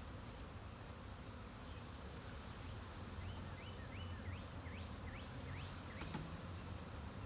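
Package honeybees buzzing in a steady hum around the open nuc box as they are dumped in. A quick run of about eight short chirps from a bird sounds in the middle, and a single sharp click comes near the end.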